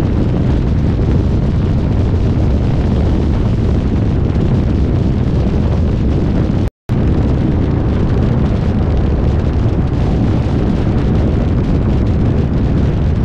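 Heavy wind buffeting on the microphone: a loud, even low rumble without any pitch, broken by a moment of silence about seven seconds in.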